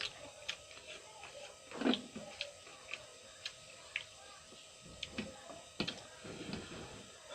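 Chewing raw cucumber: irregular wet crunches and mouth clicks, one every half second to second, with a louder crunch about two seconds in.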